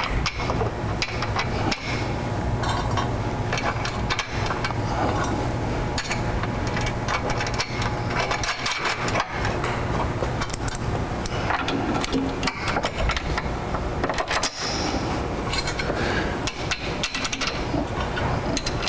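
Irregular metallic knocks and clanks of a steel side step, bolts and washers being worked against steel mounting brackets, over a steady low hum.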